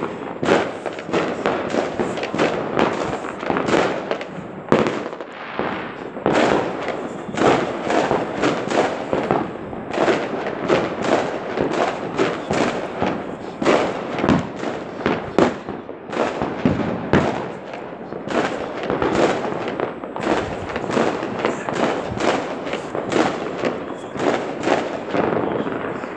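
Many fireworks going off at once: a dense, unbroken barrage of bangs and crackles, several a second.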